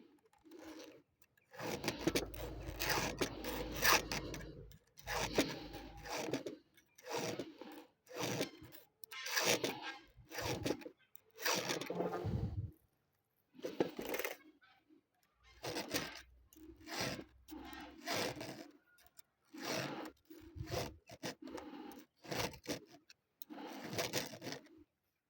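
A hand file sharpening a chainsaw chain: about fifteen rasping strokes, each around half a second to a second long, with short pauses between them.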